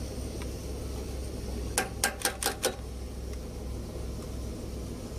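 Five quick sharp plastic clicks about two seconds in, from a truck wiring-harness connector being handled and snapped. A steady low hum runs underneath.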